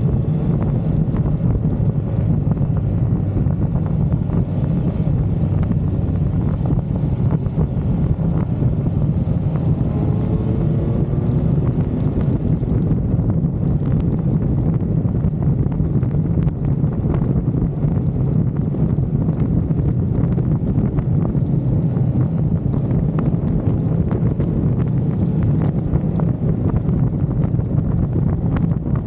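Motorcycle engine running steadily while riding, with heavy wind noise buffeting the microphone.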